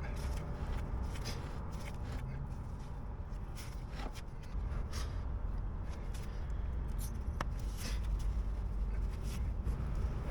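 Scattered light clicks, taps and shuffling of hands handling tools and car parts, over a steady low rumble.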